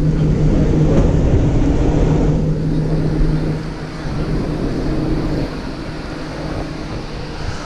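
Steady low machine hum over a constant background noise, louder for the first three and a half seconds and then dropping back.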